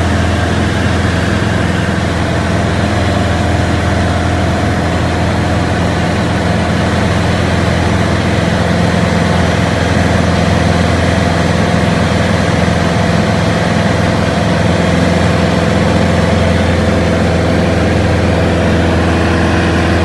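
Steady drone of a light propeller aircraft's piston engine heard from close by, a constant low hum with overlaid engine tones and airflow hiss that holds the same level throughout.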